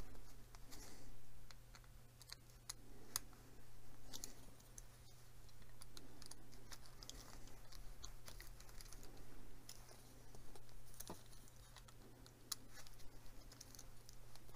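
Faint, irregular small clicks and rubbing as a precision screwdriver turns a tiny screw into a plastic drive-shaft joint of a scale model, with the parts handled between the fingers.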